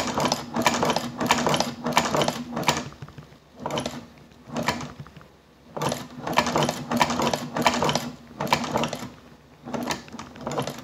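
Hand-cranked leather shoe patcher sewing machine stitching leather with heavy 207 thread: a quick mechanical clatter on each stitch, about two or three stitches a second, in runs broken by short pauses. The machine is running nicely with the heavy thread.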